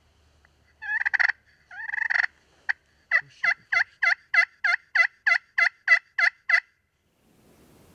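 Turkey yelping, loud and close: two raspy bursts, then a run of about a dozen evenly spaced yelps, about three a second, that stops about two-thirds of the way through.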